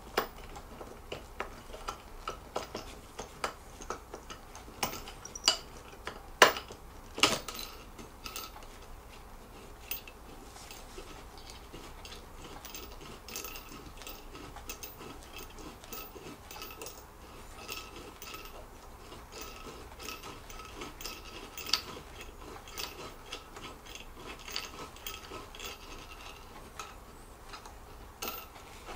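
Allen key turning and reseating in assembly bolts in a chair frame: a long run of light metallic clicks and ticks, with a few louder clicks about six and seven seconds in and once more about twenty-two seconds in.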